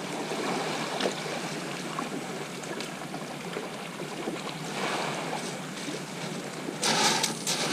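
Small waves washing onto a shingle beach, a steady rush that swells about five seconds in and grows louder and rougher near the end.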